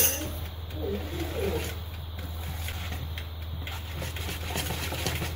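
Wire whisk stirring cake batter in a plastic bowl: soft, repeated swishing over a steady low hum, with a few faint wavering tones in the first second or so.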